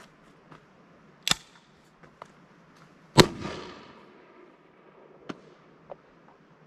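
A sharp clack about a second in. Then, about three seconds in, the loud report of a blank-fired X Products can launcher on an AR upper launching a soda can, its echo dying away over about a second. A few faint clicks follow.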